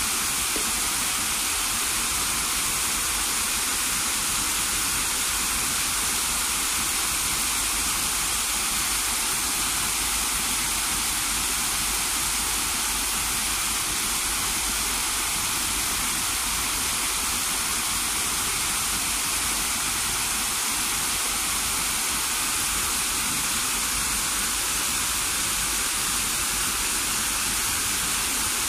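Water spilling over stepped rock ledges of a small cascade waterfall into a pond: a steady, even rushing.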